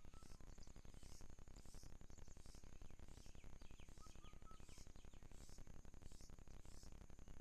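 Faint outdoor natural ambience: insects keep up a steady high drone with short high chirps repeating about once or twice a second, and a few faint small bird chirps come in midway.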